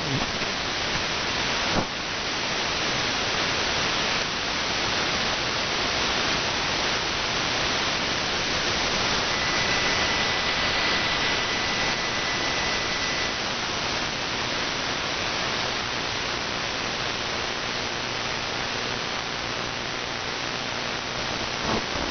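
Radio static from an AM receiver tuned between stations through an online SDR: a steady hiss, with a thin steady whistle for about four seconds near the middle.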